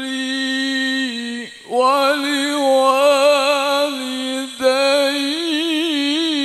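A man's voice in melodic Qur'an recitation (tilawah), amplified through a handheld microphone. He holds long, steady notes and pauses briefly twice, about a second and a half in and again past four seconds. Near the end he sings a wavering, ornamented run.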